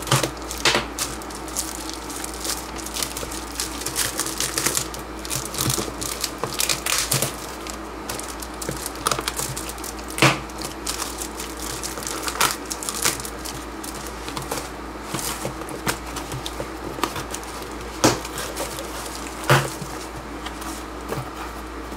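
Plastic stretch wrap crinkling and packing tape and cardboard tearing as a wrapped cardboard parcel is slit and pulled open by hand. Irregular rustling with scattered sharp snaps, the loudest about ten seconds in and twice near the end.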